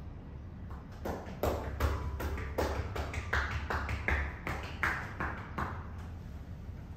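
Massage percussion strokes: a therapist's hands slapping and cupping on the body, about three strikes a second for some five seconds.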